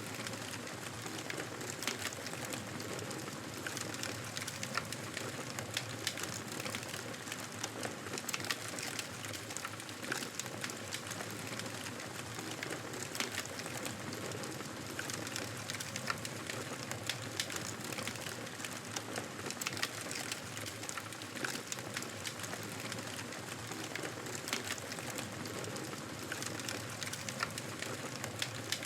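Campfire of burning wood crackling steadily, with many irregular sharp snaps over a soft hiss.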